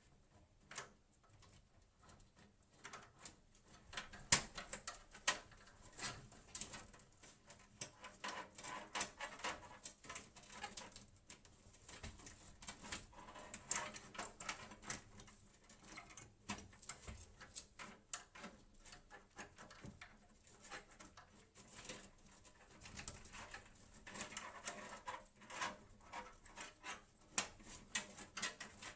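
Faint, irregular clicks, taps and light scrapes of hands handling parts in a desktop PC case, scattered all through.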